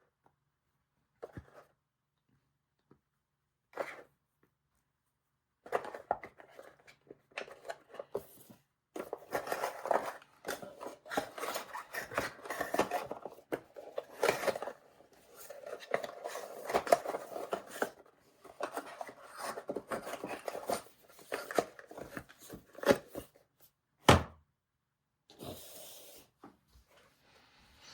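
Hand-handling noise of small hard objects: irregular rubbing, scraping and clicking for most of the stretch, then one sharp knock near the end.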